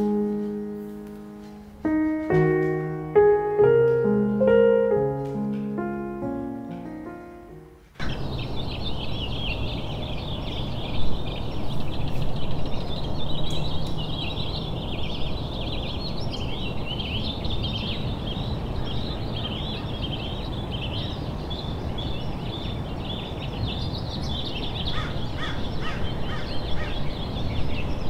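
Soft piano music, single notes fading away, stops abruptly about eight seconds in. Then a chorus of many small songbirds chirping over a steady rushing outdoor background noise.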